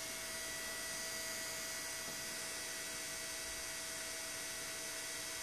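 A 480-volt AC induction motor driven at low voltage by a homemade field-oriented-control inverter, running with a steady electrical hum and a couple of thin, constant whining tones.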